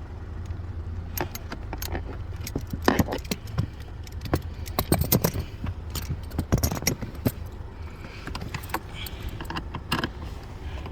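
Irregular metallic clicks and clinks of a 7mm socket driver and small screws as glove-box screws are driven back in, over a steady low hum.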